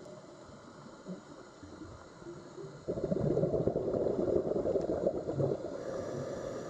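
Underwater sea sound with a low gurgling churn. A denser burst of bubbling starts suddenly about three seconds in and eases off near the end.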